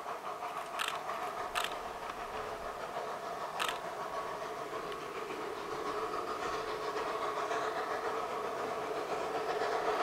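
Narrow-gauge steam train approaching up the valley, heard as a steady creaking squeal of several tones that grows louder toward the end, with three sharp clicks in the first few seconds.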